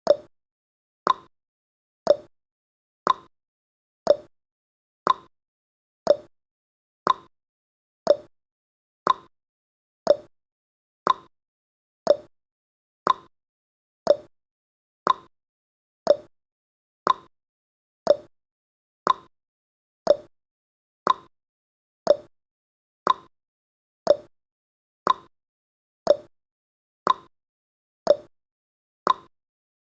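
Countdown timer's clock-tick sound effect, one sharp tick each second, with higher and lower ticks alternating like a tick-tock.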